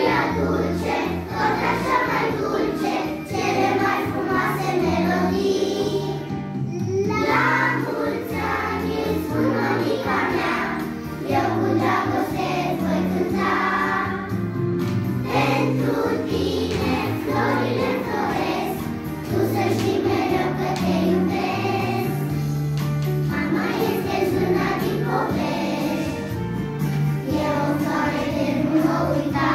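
Background music: a song sung by several voices over an instrumental backing with a steady bass line.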